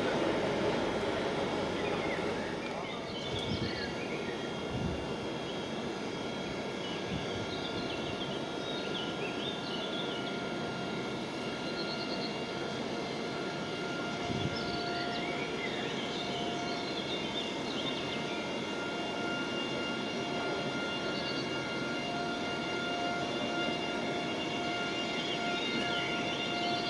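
A train fades out in the first few seconds, leaving a steady outdoor rumble with a faint steady hum and scattered high chirps.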